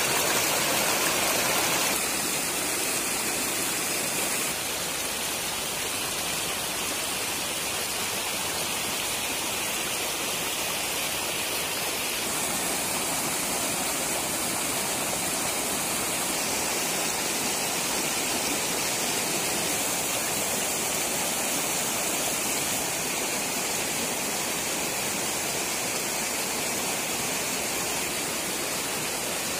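Floodwater rushing and churning as it spills across a road in foaming rapids: a steady, loud rushing that shifts a little in tone several times.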